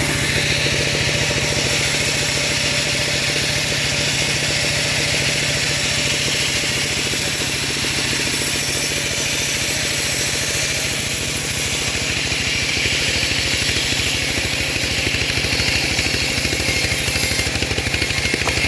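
Engine of a homemade bandsaw mill running steadily at an even speed.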